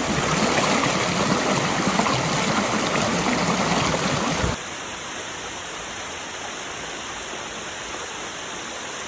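Waterfall and stream water rushing steadily. It is louder for the first four and a half seconds, then drops suddenly to a quieter, steady rush.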